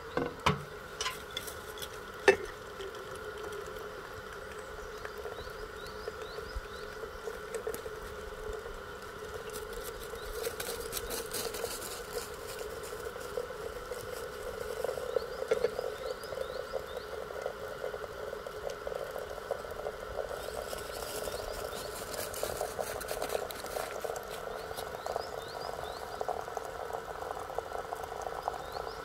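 A steady chorus of frogs croaking, with a few sharp clinks in the first two seconds and patches of faint crackling later on.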